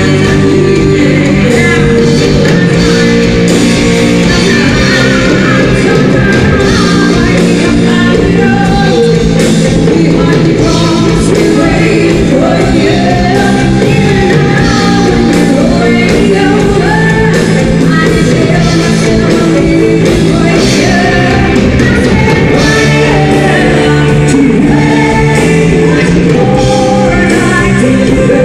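Live band playing loudly, with a singer over steady bass and drums.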